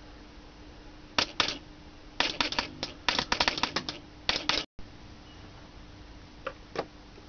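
Car door-lock actuator switched by a 12-volt relay, clicking as its plunger is driven back and forth to work a jaw. A pair of clicks about a second in, a rapid irregular run of clicks from about two seconds to nearly five, and two more near the end.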